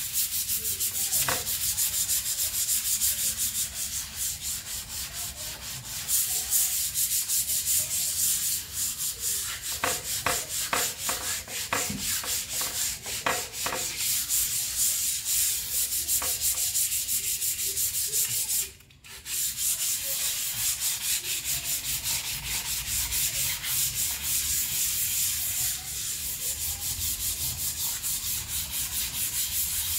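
Wet hand-sanding of a steel skid plate with soapy water: sandpaper scrubbing over the steel in rapid strokes, a steady hissing scratch. The strokes stop briefly about two-thirds of the way through, then go on.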